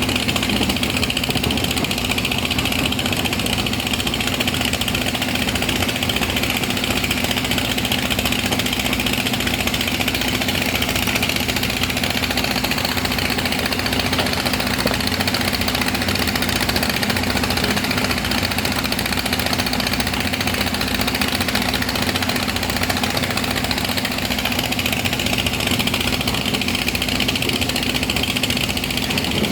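Excavator's diesel engine running steadily at a constant speed, with no revving or pauses.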